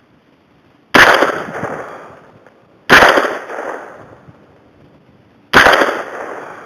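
Three single shots from a Smith & Wesson M&P-15 AR-15 rifle: about a second in, about three seconds in and near the end. Each is very loud, with an echo that dies away over about a second.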